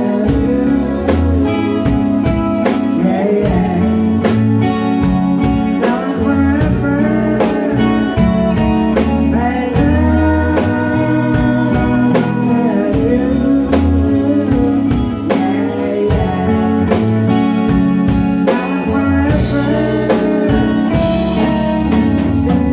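Live rock band playing with a male lead vocal: electric guitars, bass guitar and a drum kit keeping a steady beat.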